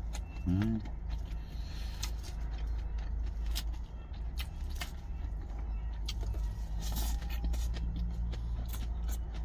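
Steady low rumble of an idling truck engine heard inside the cab, under repeated sharp clicks and scrapes of a plastic fork picking salad out of a plastic container and the crunch of lettuce being chewed. A brief hummed "mm" just after the start.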